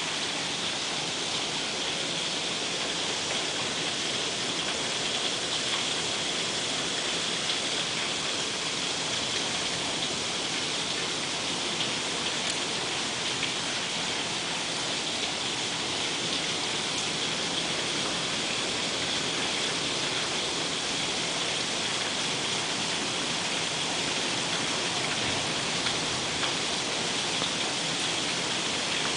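Rain falling steadily: a dense, even hiss with a few louder drops ticking through it.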